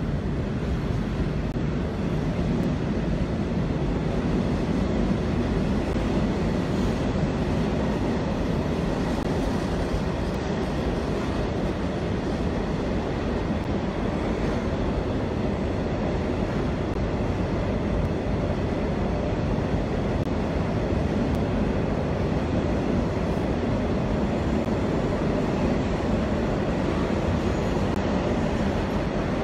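Container freight train's flat wagons rolling past steadily, a continuous noise of wheels on rail.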